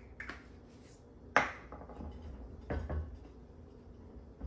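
A sharp knock about a second and a half in, as a small plastic oil bottle is set down on a wooden butcher-block counter, then a few softer knocks and rubbing as a hand greases the inside of a ceramic casserole dish.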